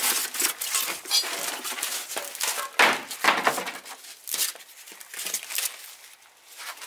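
Plastic sacking and cardboard packaging crinkling and rustling in irregular bursts as a wrapped engine is lifted out of its shipping box; the loudest crackle comes a bit under three seconds in.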